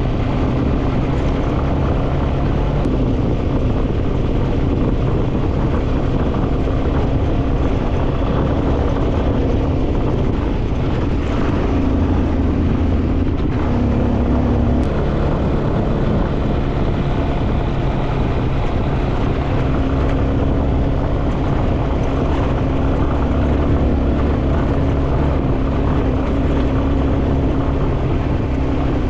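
Motorcycle engine running while riding, with road and wind noise; its pitch shifts a little about midway as speed changes.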